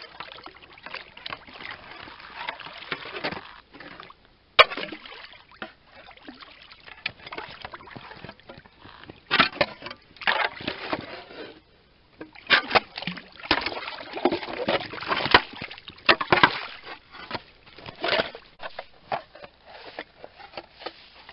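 A long-handled tool chopping and scraping at ice and slush in a hole in the snow, with slushy water sloshing. The strikes come irregularly, with one sharp crack about four seconds in and busier runs of strikes in the second half.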